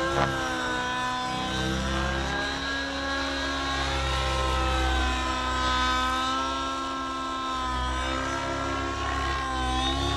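The OS 105HZ-R two-stroke nitro engine of an RC helicopter running at flying speed, a high buzzing whine whose pitch sinks and rises again as the helicopter manoeuvres overhead. A brief click sounds near the start.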